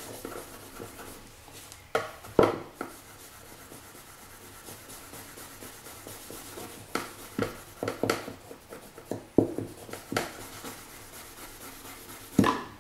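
An abrasive rubber block with fine grit in it rubbed back and forth over a steel knife blade to scrub stains off, a faint steady scratchy rubbing. Sharp knocks stand out twice about two seconds in, several times between about seven and ten seconds, and once near the end.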